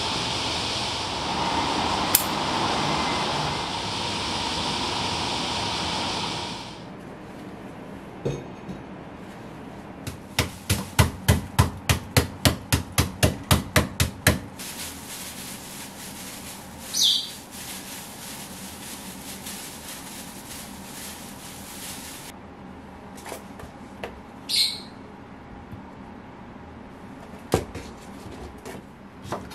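Wooden pestle pounding nagaimo yam in a plastic bag on a wooden cutting board: a quick, even run of about fifteen dull knocks, roughly three a second, that stops suddenly. Before it there is a steady hiss, and afterwards a few single light knocks and brief scrapes.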